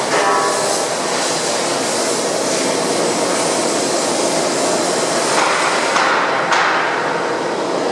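Droop & Rein FSM 1255 bed milling machine running with a steady, dense metallic clatter, typical of a milling cutter cutting metal. It swells briefly twice near the end.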